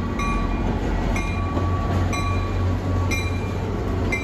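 MBTA commuter train's diesel locomotive pulling into a station platform with its engine rumbling steadily. A bell rings about once a second.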